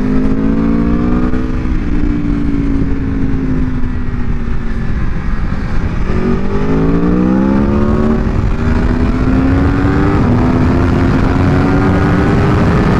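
Aprilia Tuono V4 Factory's V4 engine heard from on the bike, revs easing down over the first few seconds, then climbing again from about six seconds in as it accelerates, rising in steps. Heavy wind rush on the microphone underneath.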